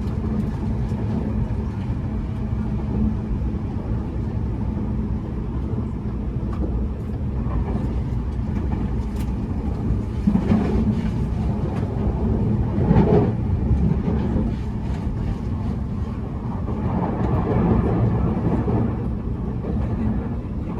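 Running noise heard inside a Tobu Spacia X limited express train car: a steady low rumble from the wheels on the track. It briefly swells louder twice about halfway through.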